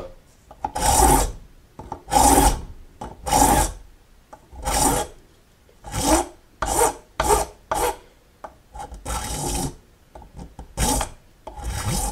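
Large coarse hand file rasping across a brass keyhole escutcheon clamped in a vise: about a dozen uneven push strokes, roughly one a second, shaping the flared edge of the keyhole.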